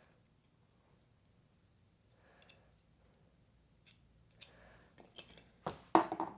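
Scattered light clicks of small metal parts and tools being handled, coming faster in the second half, ending in a louder short clatter near the end.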